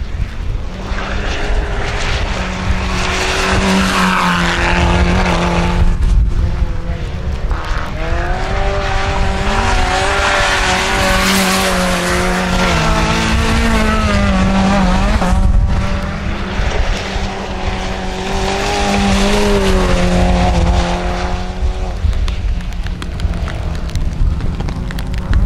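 Small 1400cc-class rallycross hatchback engines revving hard as the cars slide through corners on wet gravel. The pitch climbs, drops at each gear change and climbs again, over the hiss of tyres on wet gravel.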